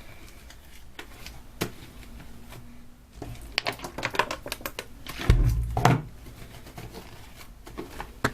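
Borax slime being squeezed and kneaded in the hands, making irregular small clicks and crackles, with a louder low thump about five seconds in.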